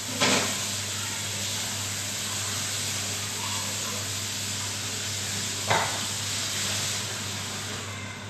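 Kitchen range-hood fan running: a steady hiss over a low motor hum. Two short knocks, one just after the start and one at about six seconds, fading a little near the end.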